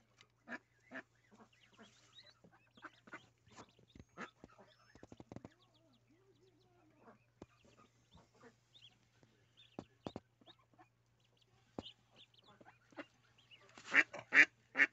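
Mallard hen and her brood of ducklings calling: many short, scattered calls, with a cluster of louder calls near the end.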